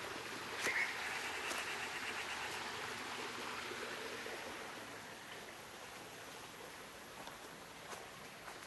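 Forest ambience: a steady hiss with a rapid trilling animal call running for about three seconds from about a second in, and a couple of light clicks near the start.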